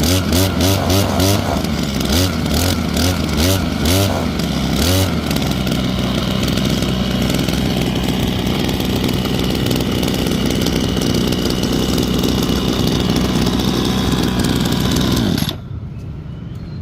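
Hyundai 826 brush cutter engine revved in quick bursts, about two a second, for the first few seconds, then held running at a steady speed. Near the end the engine sound drops off abruptly.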